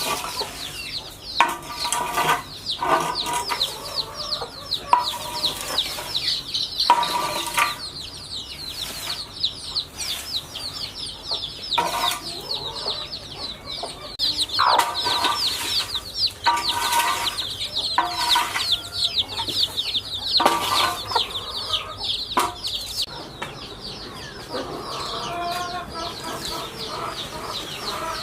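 A flock of chickens: hens cluck in repeated outbursts every second or two, over an unbroken chorus of high, rapid chirping.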